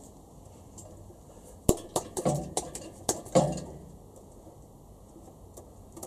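Several sharp metal-on-metal clinks and knocks, two of them ringing briefly, in a cluster from about two to three and a half seconds in: a steel ARP head stud being fed down through the cylinder head and the multi-layer head gasket into the B18C4 block.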